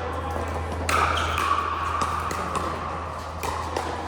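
Pickleball play: sharp pops of paddles hitting the plastic ball, the loudest about a second in, followed by several fainter hits and bounces. A steady low hum runs underneath.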